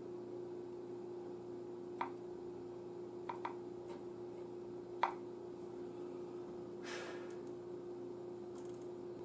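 A faint steady hum, with a few light clicks of handling on the bench and a short rustle.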